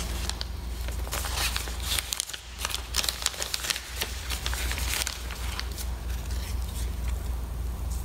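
Rustling and crinkling of a plant specimen and its plastic collecting bag being handled, in irregular crackles that thin out after about five seconds, over a steady low hum.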